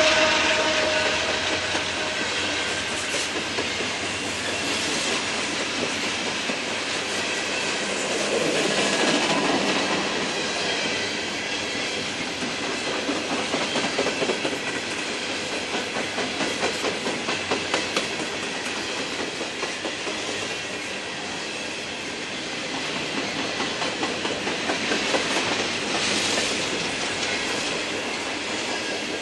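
An empty coal train passing. A diesel locomotive's engine tone fades out in the first couple of seconds. Then comes the steady rumble and clickety-clack of empty steel coal hopper cars rolling by, their wheels clicking over the rail joints.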